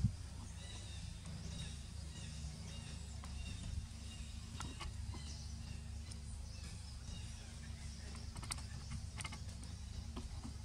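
Outdoor ambience: a steady low rumble with faint bird chirps in the first few seconds and a few soft clicks later on.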